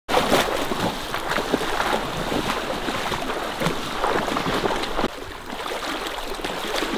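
Water splashing and sloshing with a crackling rush of noise, as from wading through a shallow river. It gets a little quieter about five seconds in.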